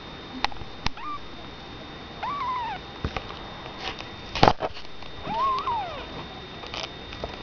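White kitten mewing: a short high mew about a second in, then two longer mews that rise and fall in pitch. There are a few sharp knocks, the loudest a thump about halfway through.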